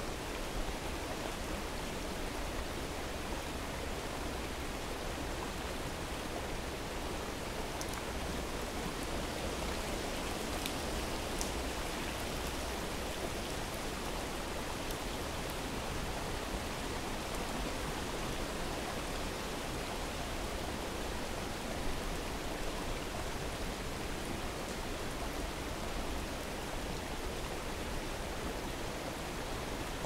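Steady rush of a waterfall and stream with rain falling, an even wash of water noise, with a few faint ticks of drops around the middle.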